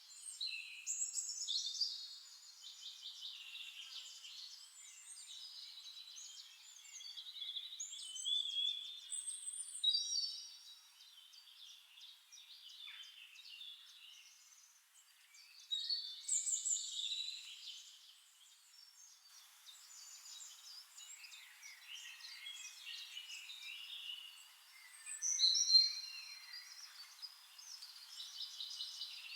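Several songbirds singing and calling over one another: chirps, rapid trills and whistled notes, with louder phrases coming in bursts every several seconds.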